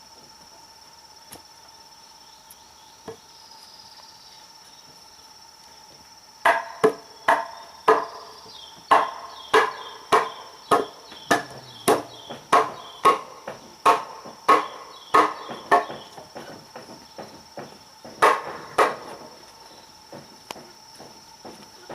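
Crickets chirring in a steady high buzz; about six seconds in, a run of hammer blows on wood starts, roughly two a second. The blows get lighter after about sixteen seconds, apart from two heavy blows near the end.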